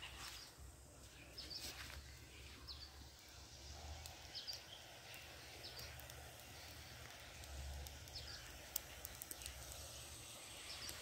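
Faint outdoor ambience: scattered short bird chirps over a low rumble, with a few small clicks near the end.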